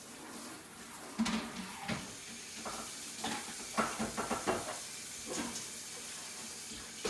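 Dishes knocking and clattering as they are handled and rinsed in a kitchen sink: a string of separate knocks, the loudest about a second in and several more in the middle, over a steady low hiss.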